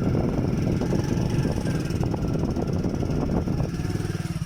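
Motor vehicle engine running while travelling along a road, with road and wind noise; near the end the engine settles into a more even beat.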